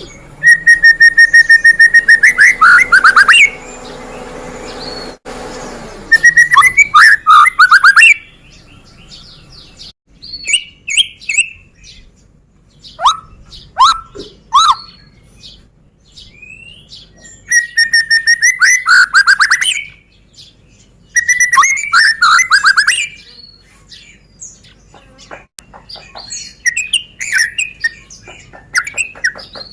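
White-rumped shama (murai batu, Medan strain) singing loudly: about six bursts of song, each opening with a held whistle and breaking into rapid trills and chattering notes, with short pauses and softer calls between them.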